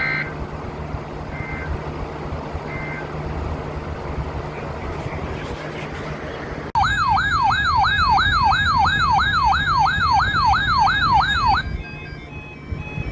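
Electronic alert siren: three short high beeps, then about four seconds later a loud, rapid yelping siren tone that sweeps up and down about three times a second for about five seconds and cuts off abruptly. Steady radio hiss and hum underneath.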